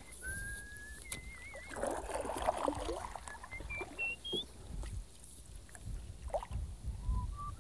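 Canoe paddle strokes dipping and swishing in river water, loudest about two to three seconds in. Over them runs a clear whistled line of held, wavering notes, then a quick run of short notes stepping upward.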